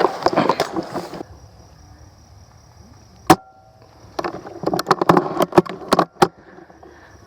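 Rustling and crunching of brush and twigs as a person moves through vegetation, with a single sharp snap about three seconds in and a burst of rapid clicks and snaps in the second half.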